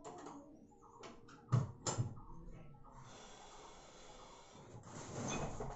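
A person breathing heavily, with two short, loud sounds close together about a second and a half in.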